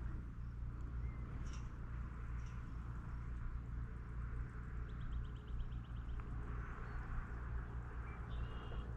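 Birds calling over a steady low rumble: a few short chirps, a rapid trill about five seconds in, and another brief call near the end.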